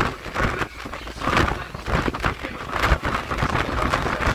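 Gusting wind buffeting the microphone in irregular thumps, over the rush of a large waterfall and wind-driven choppy water.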